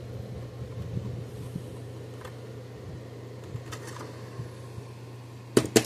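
Steady low hum, with faint light taps of hand tools against the charger's circuit board; just before the end, about three sharp clicks as metal tools are set down.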